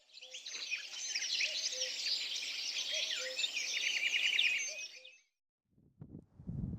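Many birds chirping and singing at once, with a fast trill about three seconds in; the chorus cuts off abruptly about five seconds in. Near the end, wind begins buffeting the microphone with low gusty rumbling.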